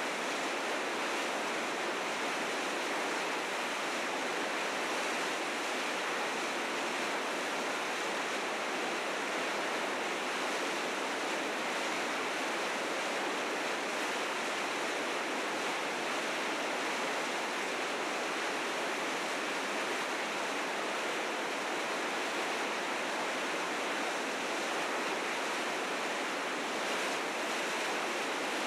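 River rapids rushing in a steady, unbroken roar of white water, the river running high and fast with spring snowmelt.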